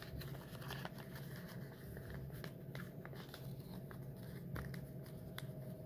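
Sheet of paper rustling and crinkling in the hands as it is folded and creased, with scattered soft ticks, over a low steady hum in the room.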